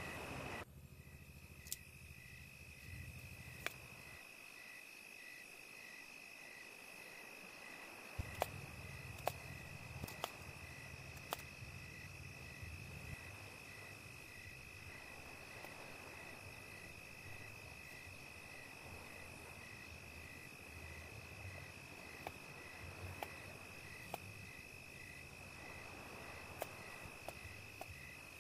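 Knife blade tapping on a bamboo cutting board as vegetables are chopped, heard as scattered short sharp clicks. Behind them, insects keep up a steady high trill with a regular pulsing chirp.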